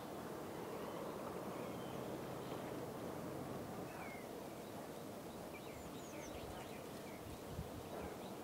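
Faint, steady outdoor background noise with a few scattered, faint bird chirps, most of them in the middle and later part.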